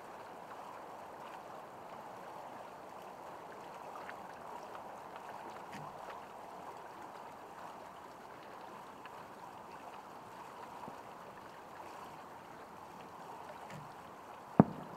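Steady rushing background noise, then near the end a single loud, sharp bang as an aerial firework shell bursts.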